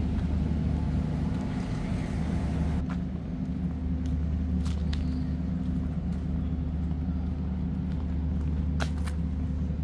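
An engine running steadily with an even low hum, with a few faint clicks.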